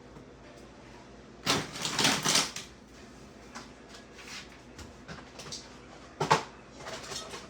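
Kitchen handling noises: about a second and a half in, a second of rustling and clattering, and near the end a single sharp knock, with small clicks in between.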